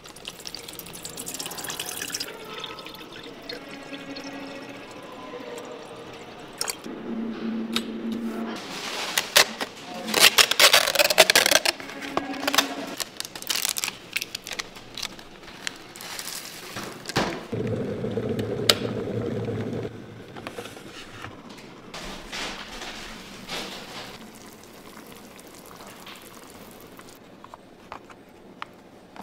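Water poured from a bottle into a plastic electric kettle, followed by crinkling and rustling as the foil lid of an instant-noodle cup is peeled back and its foil sauce sachets are handled, loudest about ten seconds in.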